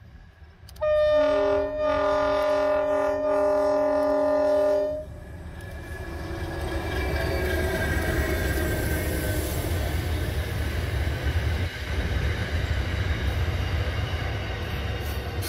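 A train's air horn sounds one long blast of several tones at once, about a second in, lasting some four seconds. Then the train's rumble and wheel-on-rail noise build and run on steadily as it comes past.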